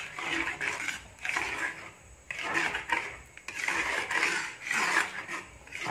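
Metal spoon scraping and stirring around a nonstick wok in repeated strokes, with a short pause about two seconds in, as it works a pandan rice-flour and coconut-milk batter that is starting to thicken on the heat.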